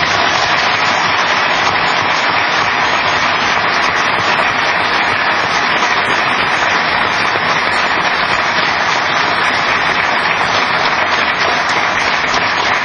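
Audience applauding, a loud, steady clapping that keeps an even level throughout.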